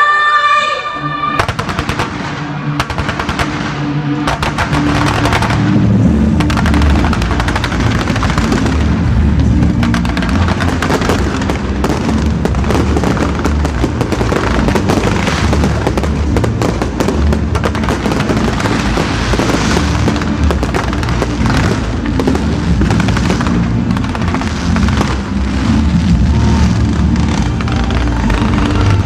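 Fireworks display going off in a rapid, continuous stream of pops and crackles, heard over loud music with a steady bass line.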